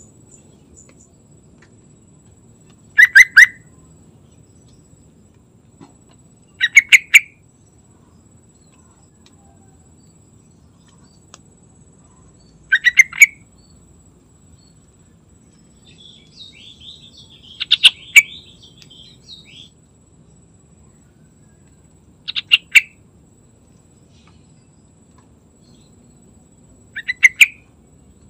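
Yellow-vented bulbul singing: six short phrases of a few quick, loud notes, about one every four to five seconds. A softer chattering run comes around the middle.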